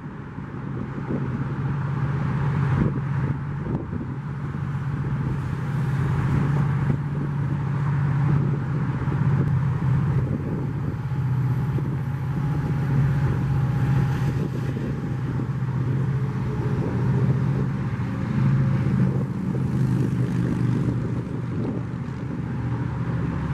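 Freeway traffic rushing past alongside a Metrolink commuter train, with a steady low diesel-locomotive drone under the tyre noise.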